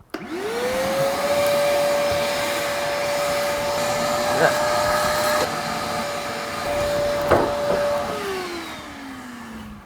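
Electric motor appliance switched on, spinning up within a second to a steady whine with a couple of sharp clicks along the way, then switched off about eight seconds in and winding down with falling pitch.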